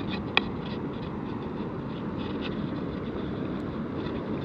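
Steady rush of fast-flowing river water, with a light click about half a second in.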